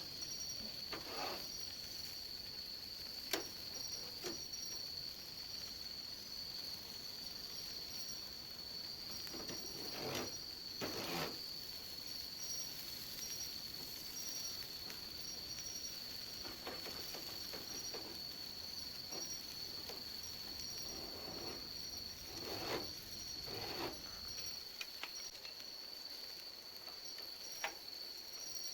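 Insects trilling steadily at a high pitch, with a few faint clicks and short soft knocks over a low rumble that stops about 24 seconds in.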